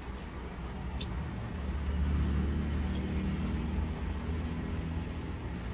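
A low rumble that swells about two seconds in, with a few sharp clinks from a chunky chain bag strap being handled.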